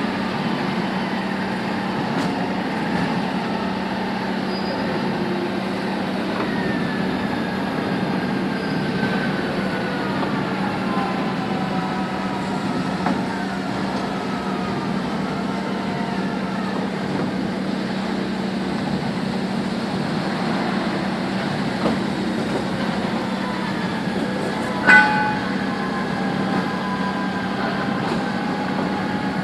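Steady machine hum of a hydraulic riveting line on a truck chassis frame, with faint whines that slowly fall in pitch. A single sharp metallic clank comes near the end.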